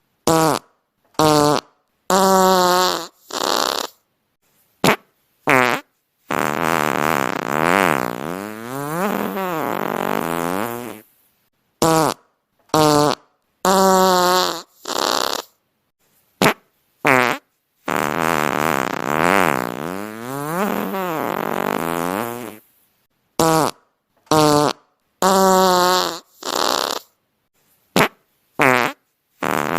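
Comedic fart sound effect: a run of short, pitched fart noises, then one long wavering fart lasting about five seconds. The sequence repeats about every twelve seconds.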